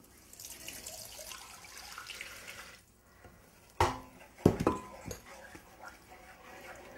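Red wine being poured into a skillet of pan drippings and splashing for about three seconds. Two sharp knocks follow about four seconds in, then quieter liquid sounds.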